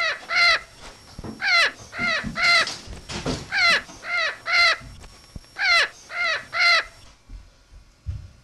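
A crow cawing in runs of three harsh caws, the runs coming about every two seconds and stopping about seven seconds in.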